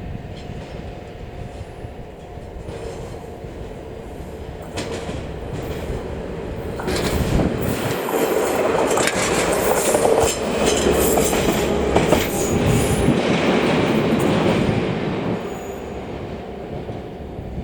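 A DE10 diesel locomotive hauling a short train passes close by, wheels clicking over the rail. It grows louder from about five seconds in, is loudest through the middle, and fades near the end.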